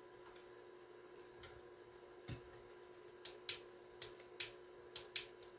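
Sharp clicks of the controls on a Super Star T747 microphone test center being worked by hand, about six of them in the second half, with a dull knock a little after two seconds, over a faint steady hum.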